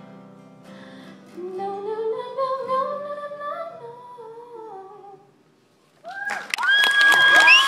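A girl's voice humming the song's closing wordless phrase over the last ringing acoustic guitar, climbing and then falling away to silence about five seconds in. About six seconds in, the audience breaks into loud clapping and whistling.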